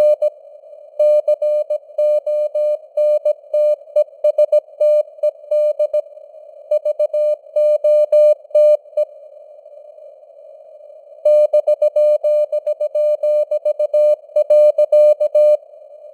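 Morse code (CW) sent at 17 words per minute: a single beeping tone keyed in dots and dashes over steady narrow-band simulated radio hiss. The sending breaks off for about two seconds midway, resumes, and stops again shortly before the end, leaving only the hiss.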